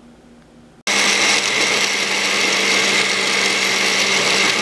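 Countertop blender starting up suddenly about a second in and running steadily, grinding dried red serrano chiles in oil with no water.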